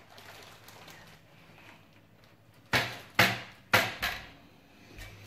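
Four sharp knocks in quick succession, about three seconds in: hard parts being struck or set down during work on an oven door.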